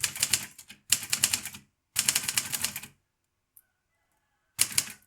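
Manual typewriter keys striking in quick runs of keystrokes: three runs one after another, a pause of about a second and a half, then another run near the end.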